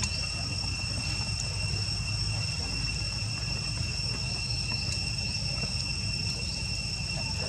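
Steady insect drone, a constant high-pitched whine held at one pitch without a break, over a low background rumble.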